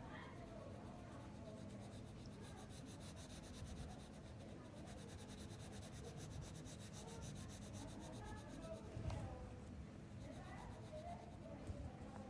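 Colored pencil rubbing on paper in quick back-and-forth strokes, shading in a butterfly's wing.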